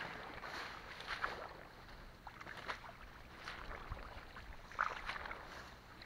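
Leafy undergrowth rustling and crackling irregularly as it is pushed aside and a rod is poked into it.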